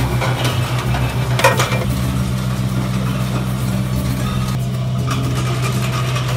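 Small bottling line running, a steady low machine hum with a noisy hiss over it and a few light irregular ticks.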